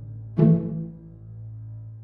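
Instrumental backing track for a musical-theatre song: one accented chord struck about half a second in over a held low bass note, then dying away.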